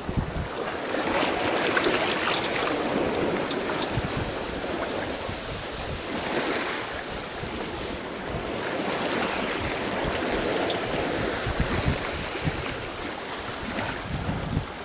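Water rushing along a sailboat's hull under way, swelling and easing every few seconds, with strong wind buffeting the microphone in low thumps.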